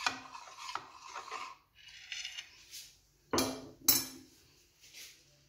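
Steel spoon stirring a thin cornflour-and-flour batter in a ceramic plate, with soft scraping and light taps, then two sharp ringing clinks of the spoon against the plate about three and a half and four seconds in, and a fainter one near the end.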